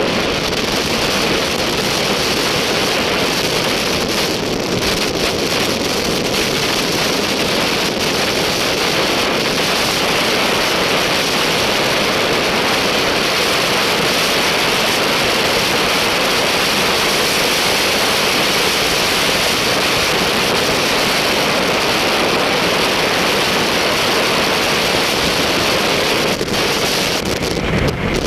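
Steady, unbroken noise of a heavy vehicle running, with wind on the microphone.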